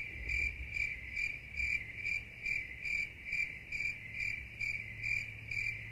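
High-pitched, cricket-like chirping: one even pulse repeating a little over twice a second.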